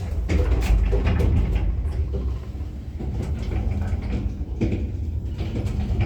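KMZ passenger lift car (built 2011, rated 1 m/s) travelling in its shaft: a steady low rumble with light rattles and clicks. It comes in sharply at the start.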